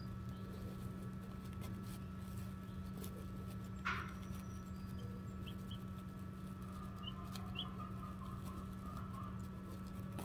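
Steady hum of the Nurture Right 360 incubator running, with a few faint, short chick peeps, the clearest about four seconds in.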